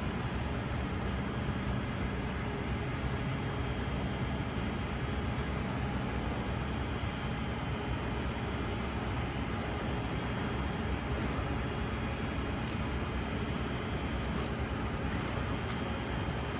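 Steady outdoor city background noise: a constant low rumble such as distant traffic and machinery, with no distinct events.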